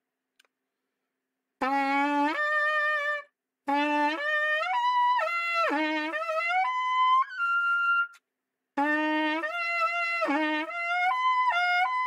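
A trumpet lead pipe, detached from the trumpet and played with the mouthpiece, is buzzed as a warm-up exercise. It gives three short phrases of brassy notes stepping up and down in pitch, with short breaks between them, starting about a second and a half in.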